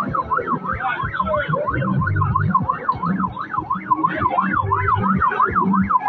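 An electronic siren yelping, its pitch sweeping rapidly up and down about three times a second, with a low thumping beat underneath.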